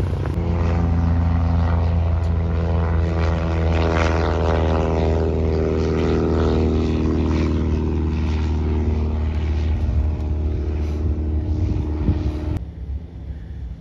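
Single-engine light propeller plane at takeoff power on its takeoff run and climb-out, a steady engine-and-propeller drone that is loudest about four seconds in. The sound cuts off abruptly near the end.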